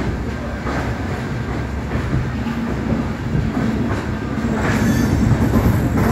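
Passenger train coach rolling out of the station: a steady wheel-on-rail rumble with scattered clacks over rail joints and points. A brief high wheel squeal comes about five seconds in.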